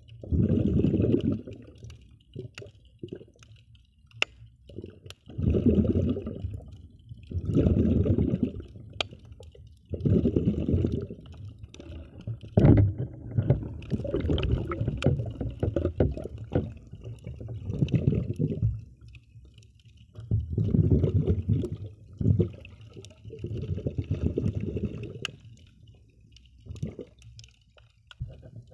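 Muffled water sloshing and gurgling picked up by an underwater camera. It comes in irregular surges of a second or two, with scattered sharp clicks between them.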